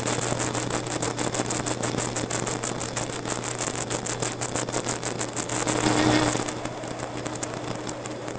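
1937 South Bend metal lathe turning a groove into an aluminium bar, the tool plunged straight in. The cut gives a loud, steady, high-pitched squeal with a rapid crackle of chips over the low hum of the machine.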